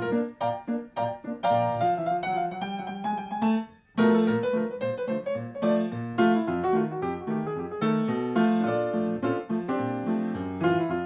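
Background piano music: a light tune of quick, separate notes, with a brief pause about four seconds in.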